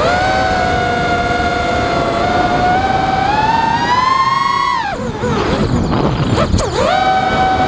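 Armattan Chameleon FPV quadcopter's brushless motors and propellers whining, the pitch climbing steadily as throttle builds. Near the middle the whine drops away suddenly and warbles unevenly for about two seconds during an aerial manoeuvre. It then snaps back to a steady whine near the end.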